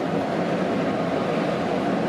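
Keihan electric commuter train running at speed, a steady rumble of wheels and running gear heard from inside the front car.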